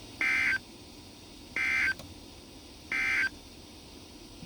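NOAA Weather Radio Specific Area Message Encoding (SAME) end-of-message code: three short, identical buzzy bursts of digital data tones, each about a third of a second long and about 1.3 s apart, marking the end of the broadcast message.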